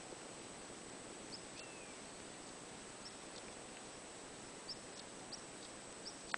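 Quiet countryside ambience: small birds giving scattered short, high chirps and one brief falling whistle over a faint steady hiss and a thin high tone, ending with a sharp click.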